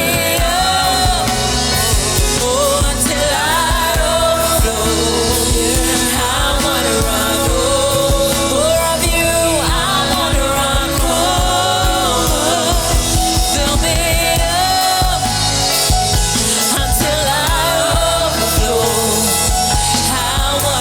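Worship song: singing voices over a band with steady drums and bass.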